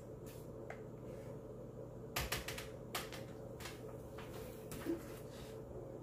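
Sharp clicks and taps of things being handled, with a quick rattle of several clicks about two seconds in and a few single taps after, over a steady low hum.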